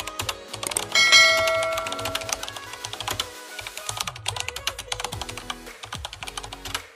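Rapid typing clicks from a keyboard-typing sound effect, running over background music. A bell-like chime rings out about a second in and fades away.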